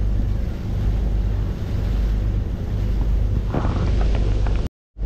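Ferry under way: a steady low rumble with water rushing and foaming along the hull and wind buffeting the microphone. The sound cuts out briefly near the end.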